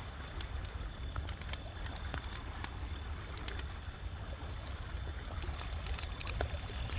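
Large wood bonfire crackling, with scattered sharp pops and snaps over a steady low rumble.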